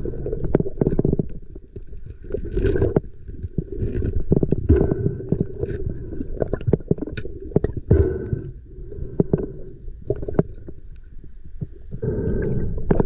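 Muffled underwater sound picked up through a camera housing: a steady low water rumble with many scattered clicks and knocks as a speared snapper and the spear shaft are handled, louder near the end.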